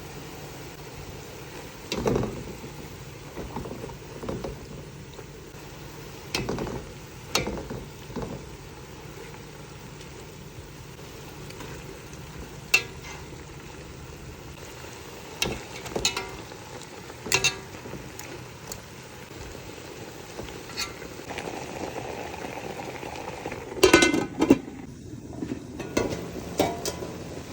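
Cooking utensils knocking and clinking against a pot or pan, about fifteen scattered strikes, some ringing briefly, with a louder cluster near the end, over a steady low hiss.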